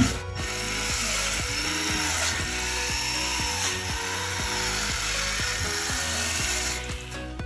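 A power tool running with a steady hiss that cuts off near the end, over background music with a steady beat.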